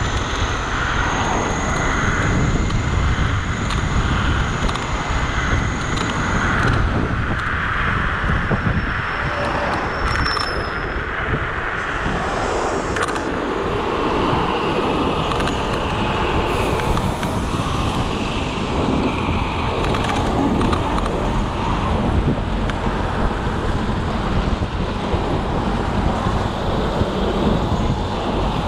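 Wind rushing over the microphone and road rumble while riding a Dualtron electric scooter at speed, a steady rush throughout. A faint high whine runs through the first six seconds or so.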